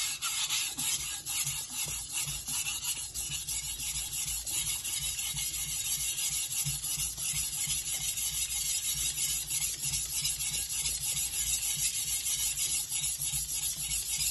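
A steel cleaver blade scraping back and forth on a wet 1200-grit Naniwa water stone covered in slurry. It makes a steady, gritty rasp of quick, repeated sharpening strokes.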